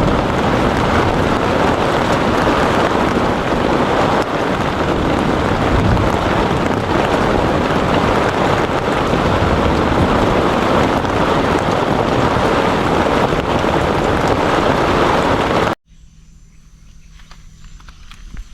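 Heavy rain in a thunderstorm: a loud, dense, steady hiss of rain and wind. About three-quarters of the way through it cuts off abruptly to a faint, quiet background.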